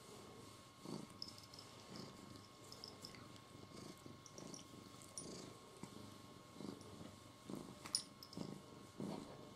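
Domestic cat purring faintly in slow, even cycles, about one a second, with a brief click near the end.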